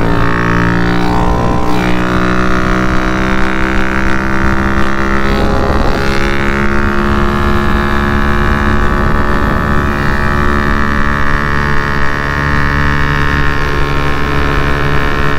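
Big-bore Honda Grom's single-cylinder four-stroke engine running steadily under way, its note shifting briefly about a second in and again around five to six seconds in.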